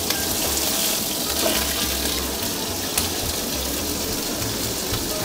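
Veal searing in olive oil in a hot pan: a steady sizzle with a few faint crackles.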